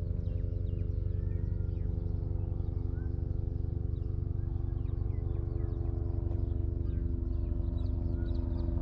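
An engine running steadily at an even idle, a constant low hum with a fast pulsing throb, with faint bird chirps over it.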